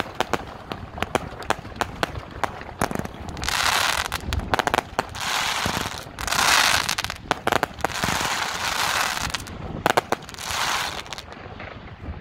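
China Red 'High Kick' 144-shot firework cake firing: a quick run of sharp bangs from launches and bursts, then from about three and a half seconds in, several waves of dense crackling from gold crackling stars, with cracks in between, dying away near the end.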